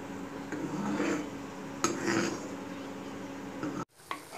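Steel ladle stirring and scraping foaming butter in a thick-bottomed kadai as it simmers down to ghee, over a steady low hum. The sound drops out abruptly near the end.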